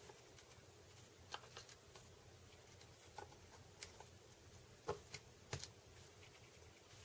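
Faint, scattered light clicks of small screwdrivers working a tiny circlip onto the hub shaft of a 120mm cooling fan, several ticks a second or so apart against near silence.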